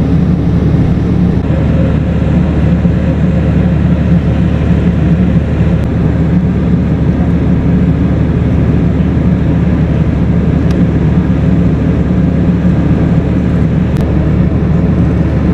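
A steady, loud low rumble.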